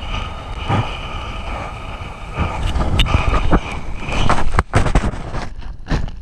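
Strong storm wind buffeting an action camera's microphone in a low, steady rumble. From about halfway through, sea water and spray splash and slap against the camera in a run of sharp hits.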